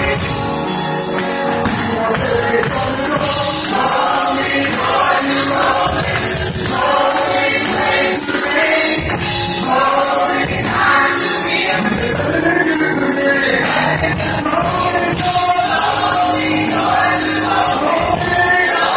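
Live gospel praise music: several singers singing in harmony into microphones, backed by keyboard and drums with a steady beat.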